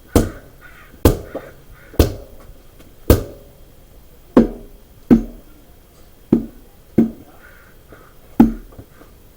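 Blows struck on a 395/85 R20 truck tire and its split-ring rim: about nine sharp impacts, roughly one a second, each ringing briefly. It is a safety check at about 5 psi that the split ring is properly seated and nothing lets go before the tire is fully inflated.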